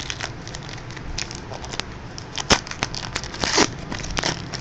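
Trading card packs and cards being handled: wrapper crinkling and tearing with scattered sharp clicks, the loudest click about halfway through.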